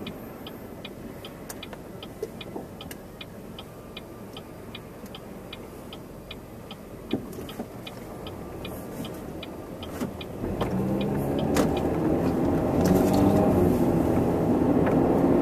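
Chevy Cobalt cabin: the turn-signal relay clicks steadily over the engine's low hum. About ten seconds in, the clicking stops and the engine gets louder as the car accelerates away.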